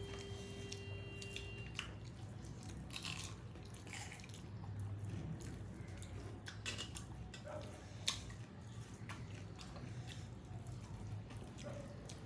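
People chewing and eating: scattered short wet clicks and mouth smacks, over a steady low hum.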